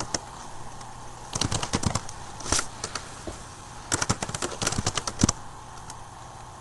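Quick runs of clicks from a computer keyboard and mouse: one short run about a second and a half in, and a longer one between about four and five seconds in.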